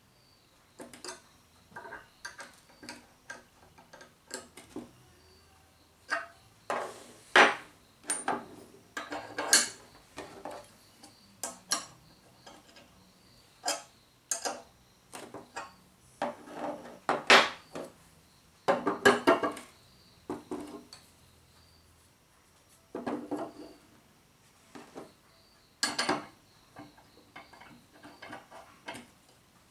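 A hex key clicking and scraping in bolt heads while roller dies and a steel pin are fitted to a manual pipe bender. The metal clinks and taps come irregularly, some in quick clusters.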